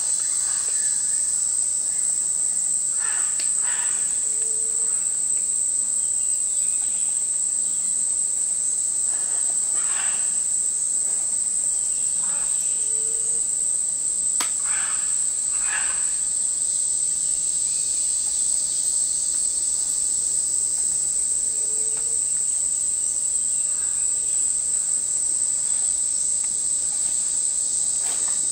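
Steady high-pitched drone of a tropical insect chorus, with a few short harsh bird calls breaking in now and then, some in quick pairs.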